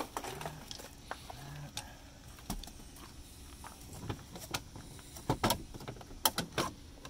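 Irregular clicks and knocks of hands and tools working on parts inside a vehicle, growing busier near the end with a quick run of sharp clacks.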